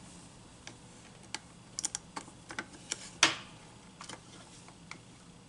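Scattered light clicks and taps of hands handling a small plastic toy case, its circuit board and wiring, with one louder click about three seconds in.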